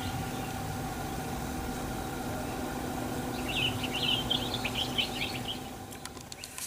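Steady engine idling hum, with a run of quick bird chirps about halfway through; the hum fades near the end.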